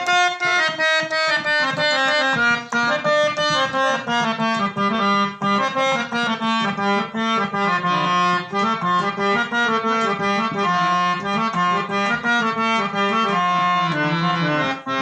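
Instrumental interlude of a Gujarati devotional bhajan: a harmonium plays a running melody of held reedy notes over a steady beat.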